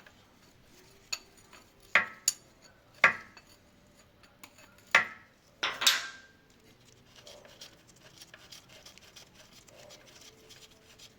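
Metal hand tools or parts clinking and clanking as they are handled and set down: about six sharp metallic knocks in the first six seconds, then only faint handling noise.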